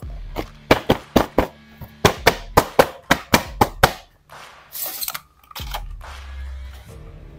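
Clear plastic blister packaging of an action figure crackling and popping in a quick run of sharp cracks as it is pressed and the figure is pushed out, then a short scraping rustle about five seconds in.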